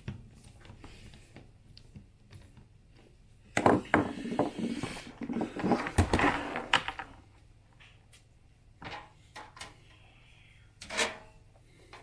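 Wire guard and plastic parts of a floor fan clattering and knocking as they are handled and fitted together. A run of loud rattling and knocks starts a few seconds in and lasts about three seconds, followed by a few single clicks and a knock near the end.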